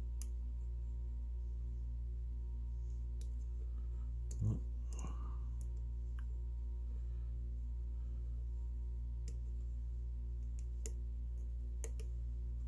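Faint, scattered clicks of a steel lock pick probing the pins and warding inside a brass padlock, over a steady low hum. A brief murmur of a voice about four and a half seconds in.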